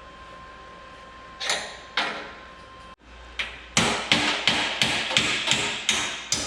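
Hammer striking metal: two blows, then after a short pause a quick run of blows, about three a second, each with a short metallic ring.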